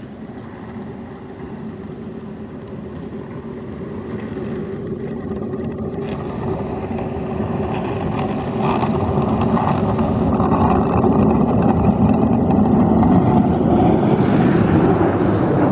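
Scania R480 snowplough truck approaching and passing close by, its diesel engine running steadily and growing louder throughout, with a rising rush of snow thrown off the plough blade.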